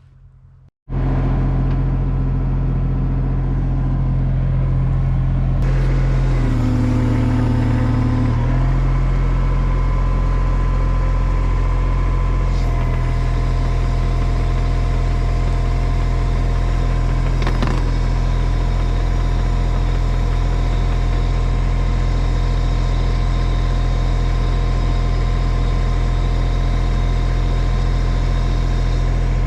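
An engine running steadily and loudly. Its pitch dips for a couple of seconds about six seconds in and shifts slightly again around thirteen seconds.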